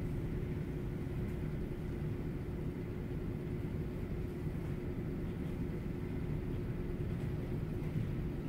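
Steady low room rumble with a faint constant hum tone, and a few soft knocks of bare feet on the studio floor.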